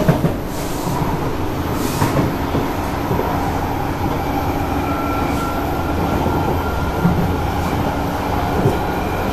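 Kawasaki Nippon Sharyo C751B metro train heard from inside the passenger cabin while running between stations: a steady rumble of wheels on track and running noise. A faint steady whine comes in about halfway through, with a few brief clicks.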